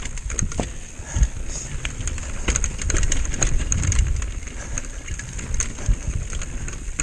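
Mountain bike riding fast down a rocky gravel trail: tyres crunching over stones and the bike rattling with many sharp knocks, over a low rumble of wind on the microphone.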